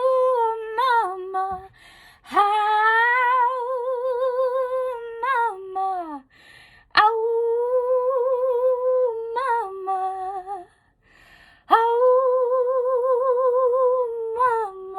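A woman singing wordless, howl-like 'ooh' calls unaccompanied. Four long held notes with vibrato, each ending in a quick break upward and then falling away, with short breaths between them; the second one slides down at its end.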